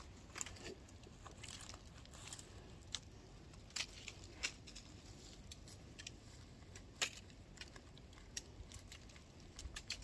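Faint, irregular snaps and cracks of twigs as clumps of mistletoe are broken off by hand high in a tree: about ten sharp clicks, spaced a second or so apart.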